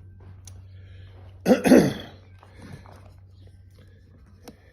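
A man coughs once, about a second and a half in, over a steady low hum, with a few faint clicks of small parts being handled.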